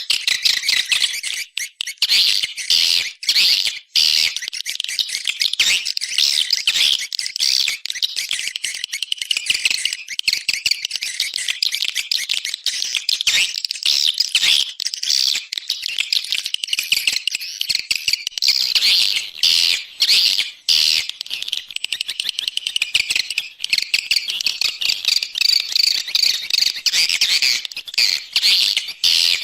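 Recorded swiftlet calls played as an external lure sound for a swiftlet house: a dense, continuous chatter of many overlapping high chirps and twitters.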